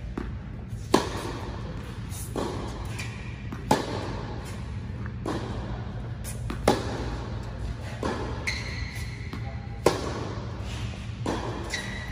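Tennis ball struck by a racket in a baseline rally: four sharp cracks about three seconds apart, with fainter hits and bounces from across the court between them, over steady background music.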